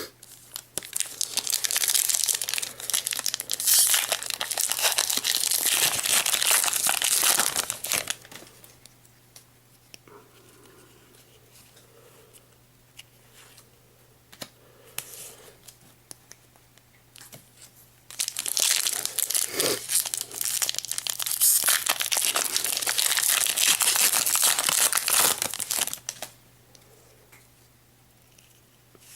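Foil wrappers of Pokémon trading-card booster packs crinkling and tearing as packs are opened, in two long spells of crackling about ten seconds apart.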